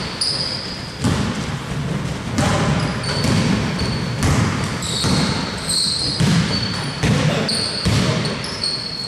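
A basketball being dribbled on the court, bouncing about once a second, with short high squeaks of players' shoes on the floor between the bounces.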